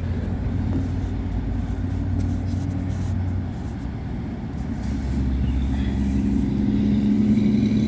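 Motor vehicle engines running in street traffic: a low, steady hum that gives way about five seconds in to a louder, higher drone.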